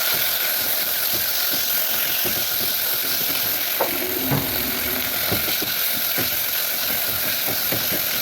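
Food sizzling steadily in hot olive oil in a pan, with a few light clicks of a utensil against the pan.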